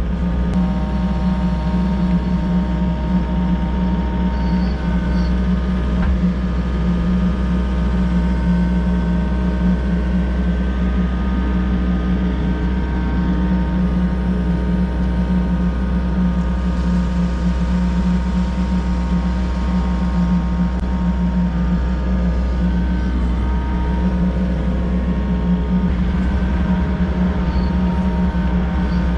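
Volvo EC60E mini excavator's diesel engine running at a steady speed, with one faint knock about six seconds in.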